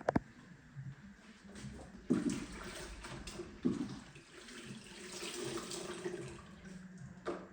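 Water running and splashing, as from a tap into a sink, for a few seconds. A sharp click comes just at the start.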